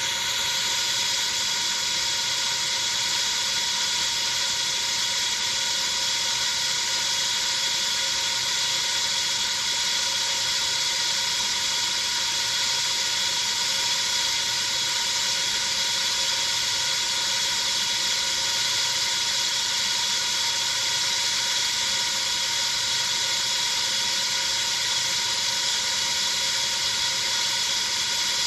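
"IQ 167" meme sound effect: a steady, unchanging high-pitched hiss with several held tones beneath it, at constant loudness throughout.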